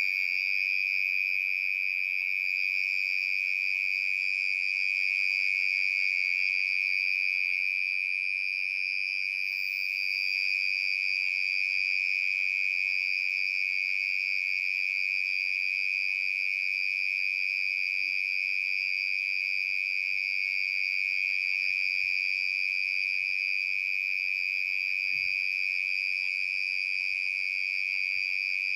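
Cricket calling in one steady, unbroken, high-pitched trill.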